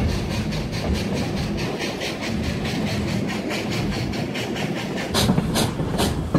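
Steam Locomotive 40's exhaust chuffing at an even beat of about three to four a second, over the steady rumble of the moving train; the chuffs grow louder about five seconds in.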